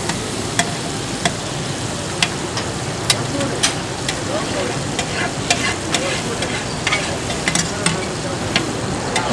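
Liver and tomato pieces sizzling steadily in oil on a large flat steel tawa, while a metal spatula stirs and scrapes them, clacking against the griddle in sharp, irregular clicks.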